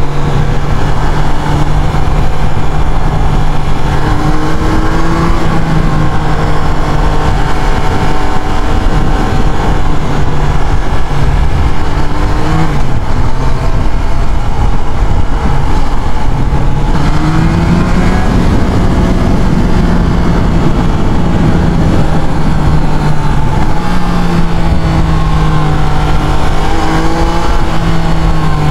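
Triumph Trident 660's inline three-cylinder engine running under way. Its pitch rises and falls with throttle and gear changes, over a steady rush of wind and road noise.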